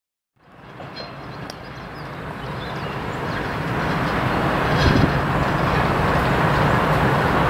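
TEM2 diesel-electric shunting locomotive and its train approaching slowly: steady low engine rumble with wheel clatter on the rails, growing louder. A few clicks, and a knock about two-thirds of the way through.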